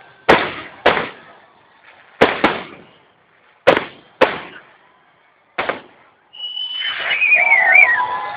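Aerial firework shells bursting overhead: about seven sharp bangs, irregularly spaced, each with a brief crackle and echo. In the last two seconds a steady hiss rises with a wavering high whistle over it.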